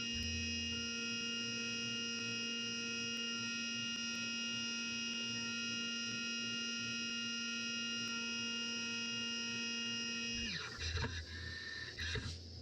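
CNC milling machine spindle running with a steady whine of several high tones while a round-over tool cuts a radius on a brass belt buckle. About ten seconds in, the pitch glides down and back up as the machine changes speed.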